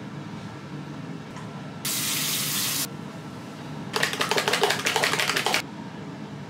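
A one-second hiss from a spray bottle, then a small plastic sunscreen bottle being shaken hard for about a second and a half, a rapid rattling that is the loudest sound here.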